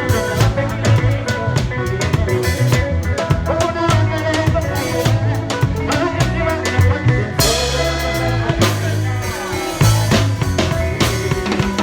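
Live band playing an instrumental passage: a drum kit keeps a busy, steady groove of bass drum, snare and rimshots under a strong bass line and sustained pitched instrument parts.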